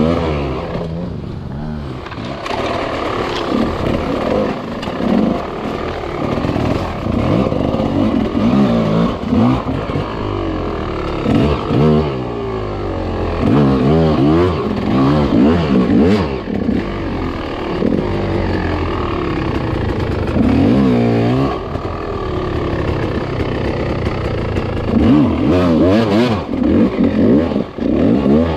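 GasGas enduro dirt bike engine revving up and down as the throttle is worked on and off on a rough trail climb, with a few sharp knocks along the way.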